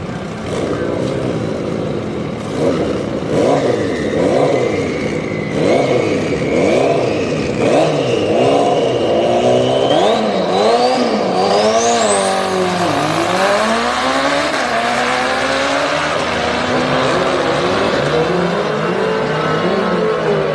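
Motorcycle engines revving up and down over and over, then running steadier, with a high whine that climbs in pitch around the middle.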